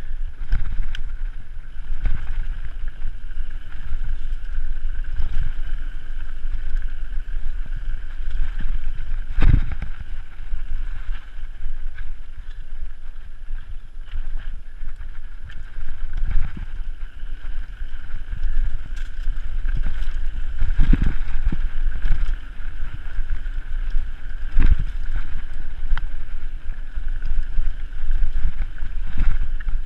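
Mountain bike riding fast down a dirt singletrack: steady wind rush on the microphone over the rattle and rumble of tyres and frame on rough ground. Heavy thumps from bumps come about ten seconds in, and again a little past twenty and about twenty-five seconds in.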